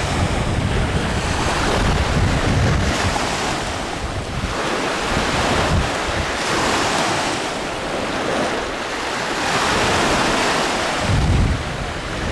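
Wind buffeting the microphone over the wash of small waves, swelling and fading every few seconds, with strong gusts of rumble near the start and near the end.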